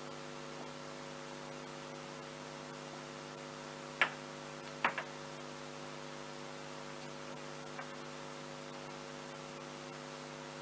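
Steady electrical mains hum from the recording, with a few short light knocks about four and five seconds in.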